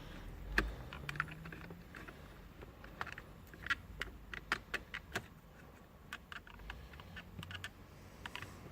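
Irregular light clicks and taps of hands fitting and aligning a replacement steering-wheel clock spring on the steering column, the clicks coming thickest around the middle.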